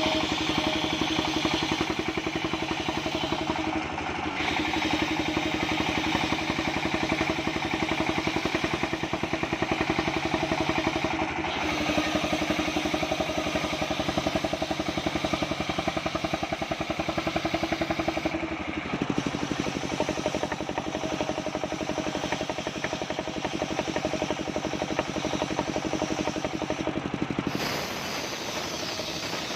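Homemade circular sawmill running with a steady engine-like drone whose pitch shifts several times, then eases off and quietens near the end.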